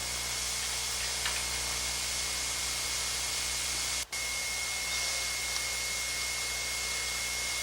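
Steady hiss with a low hum: background noise of a VHS soundtrack with no speech. About four seconds in it drops out for an instant, and after that a thin, steady, high whine runs under the hiss.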